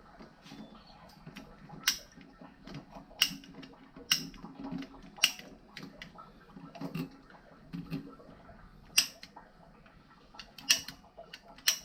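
Irregular sharp clicks and knocks, about a dozen scattered through, from plastic plumbing pipe and fittings being handled and worked, over a faint low hum.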